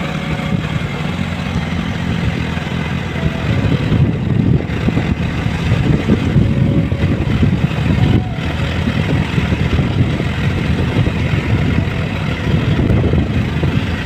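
Two-wheeler engine running steadily under way, with a churning wind rumble on the microphone that grows louder partway through.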